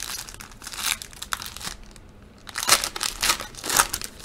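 Foil wrapper of a 2020 Panini Chronicles football card pack being crinkled and torn open by hand: a run of crackling, a short pause, then louder bursts of crinkling in the last second and a half.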